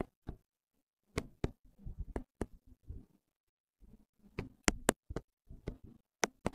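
Irregular, quick taps, well over a dozen, as text is typed on a tablet's on-screen keyboard.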